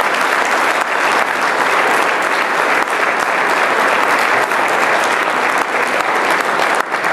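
Banquet audience applauding steadily, a dense patter of many hands clapping.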